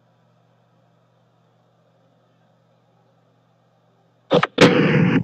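Near silence with a faint steady hum for about four seconds, then a sudden loud, harsh burst of sound near the end.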